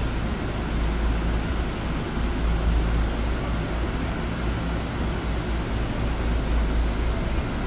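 Steady low rumble and hiss of room noise, with air conditioners running, in a crowded hall held quiet for a minute of silence.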